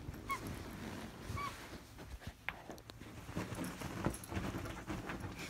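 Pembroke corgi moving about under a fabric comforter: irregular rustling and scuffing of cloth, with two short high squeaks in the first second and a half.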